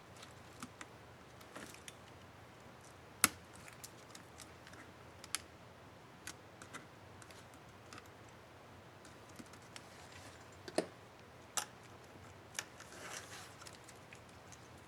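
Small, sharp plastic clicks and snaps from handling the Enter keycap and its retainer clips on an Asus K55A laptop keyboard, coming at irregular intervals, the loudest about three seconds in. A brief scratchy rustle comes near the end.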